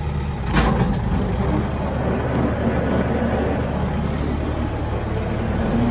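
Kubota tractor engine running at a slightly raised idle as the PTO is engaged: a clunk about half a second in, then the batwing mower's driveline and blades spin up, adding a steady rushing noise over the engine.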